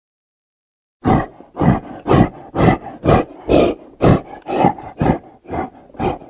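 A large ape's pulsed long call: after about a second of silence, a run of about eleven rough, roaring pulses, roughly two a second, goes on steadily.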